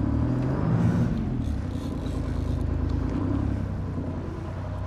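Sportfishing boat's engine running with a steady low rumble, rising and then falling in pitch about a second in as the boat is throttled ahead.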